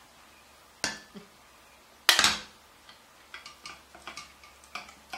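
Metal kitchenware clattering as a roasted whole chicken is handled on a wire beer can chicken rack in a pot: a knock under a second in, a sharper, louder clank about two seconds in, then a run of small light ticks and clinks.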